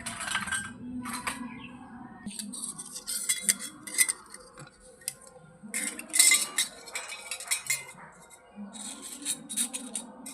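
Small miniature toy kitchenware pieces clicking and clinking against each other as they are handled, in several bursts of taps.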